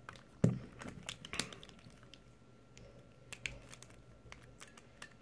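Scattered small plastic clicks and taps from a Gans 356 Air speedcube as its centre piece is pressed and fiddled back into place; the piece is not yet clicking in. The loudest clicks come about half a second and about one and a half seconds in.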